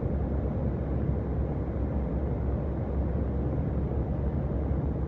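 Steady engine and road noise of a heavy truck cruising on a motorway, heard from inside the cab.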